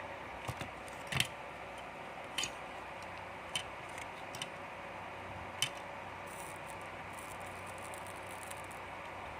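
Several short, light clicks and taps at irregular intervals over a steady hiss, the loudest about a second in, then only the hiss for the last few seconds.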